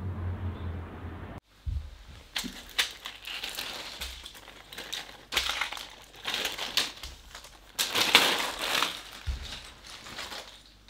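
Plastic medicine blister packs and a clear plastic bag crinkling and crackling as they are handled, in irregular bursts that start about a second and a half in.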